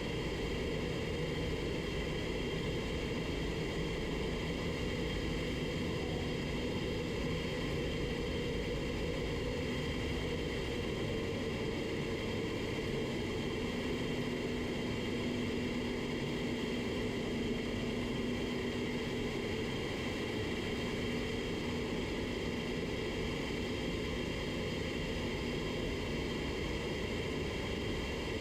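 Paint spray booth's ventilation fans running with a steady whir and low hum.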